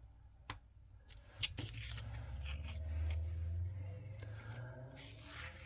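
Small paper pieces and crafting tools handled on a work table: a few light clicks and taps, with a stretch of rubbing and rustle from about a second and a half in to near the end.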